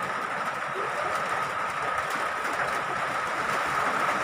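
Steady rushing background noise with a thin, steady high whine running through it. No distinct event stands out.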